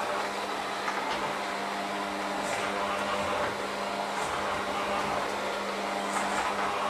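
Electric hand mixer running steadily, mixing a crumbly dough in a stainless steel bowl, with a few light clicks.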